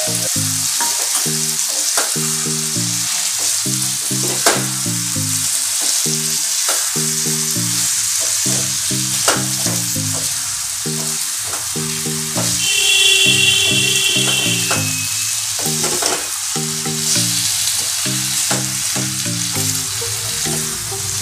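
Chopped eggplant, potato and tomato sizzling in hot oil in a steel kadhai as a spatula stirs them, with a few sharp clinks of the spatula against the pan. Background music with a low, stepping melody plays underneath.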